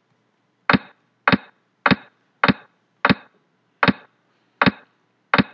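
Eight sharp wooden clacks, about one every two-thirds of a second: a Chinese chess program's move sound, one clack for each piece set down as the game replays move by move.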